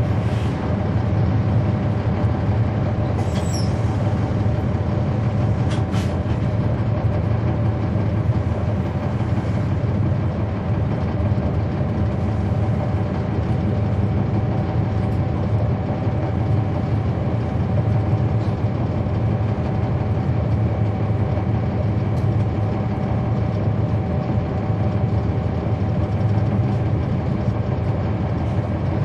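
Cummins ISL9 straight-six diesel engine of a NABI 40-SFW transit bus running steadily, heard from the rear seats close to the engine, with a low drone and a steady higher tone at an even level.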